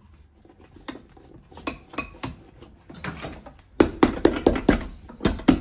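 Hammer striking a Dainite rubber outsole freshly glued onto a boot's leather sole, setting the bond. Light scattered taps and handling at first, then about two-thirds of the way in, quick even blows at about five a second.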